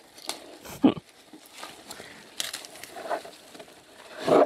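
Aronia bush foliage and branches rustling, with a few short clicks and knocks, as berry clusters are picked by hand. Two louder sharp knocks come about a second in and near the end.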